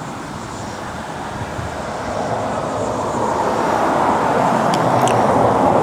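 Traffic noise, a steady rush that grows gradually louder, with two light clicks about five seconds in.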